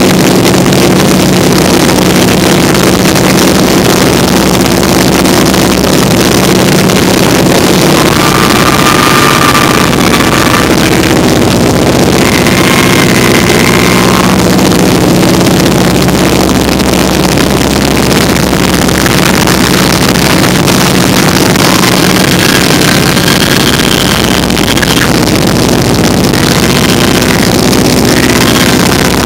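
Vintage open-cockpit biplane's engine droning steadily in flight, under heavy wind rushing over the microphone in the open cockpit. A few faint, thin high tones come and go, around the middle and again near the end.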